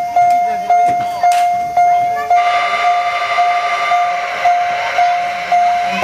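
Miniature railway level-crossing signal sounding its kan-kan warning bell, one ringing tone struck at about two strikes a second. A steady rushing noise joins about two seconds in.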